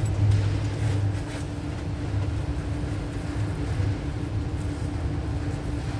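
Large engine idling steadily: a low hum with a steady tone above it, slightly louder in the first second.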